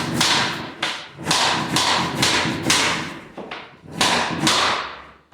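Hammer striking a plastic tapping block to knock a flooring plank's tongue into the groove of the next plank: a series of sharp knocks about two a second, with a short pause a little past the middle.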